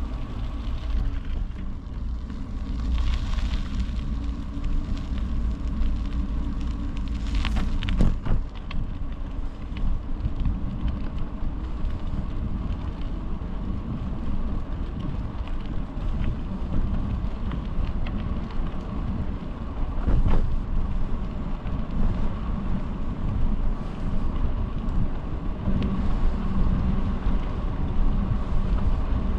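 Wind rushing over the microphone and tyre rumble from a bicycle being ridden along a road, a steady low buffeting with a few sharp knocks as the bike goes over bumps, one about a third of the way in and another about two-thirds in.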